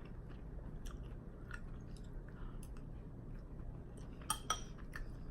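Close-miked chewing and wet mouth clicks of someone eating, with one sharper, briefly ringing knock about four seconds in.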